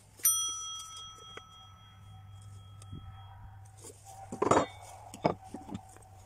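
A piece of steel struck once with a sharp clink, then ringing with several clear high tones that fade over about three seconds. A few short knocks of wood and tools being handled follow in the second half.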